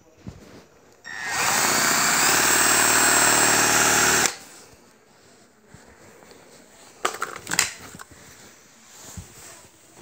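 Cordless drill running at full speed for about three seconds, boring into a phone, with a motor whine that rises briefly at the start and cuts off suddenly. A few knocks follow as it is handled.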